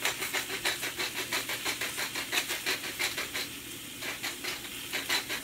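Hand-twisted spice grinder grinding seasoning in quick rhythmic strokes, about six a second, with a short pause about three and a half seconds in. Oil sizzles steadily in a hot pan underneath.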